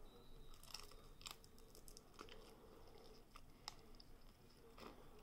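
Faint close-up chewing of crispy fried food, with a few soft scattered crunches.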